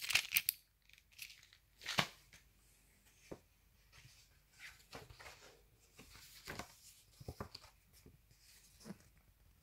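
Crackly rustling and crinkling of snack packaging being handled. It is loudest in a burst right at the start, with a sharp crackle about two seconds in, then scattered softer crinkles.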